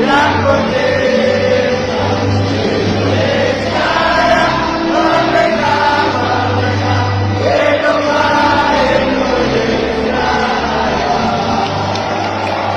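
Music with choral singing: long held notes over a steady bass.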